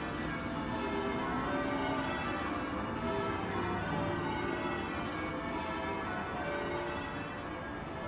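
Church bells ringing, many bells sounding one after another at different pitches and overlapping.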